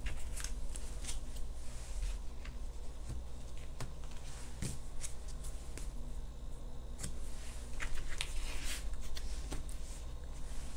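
Oracle cards being handled and shuffled: papery rustling and light taps, busiest about eight seconds in.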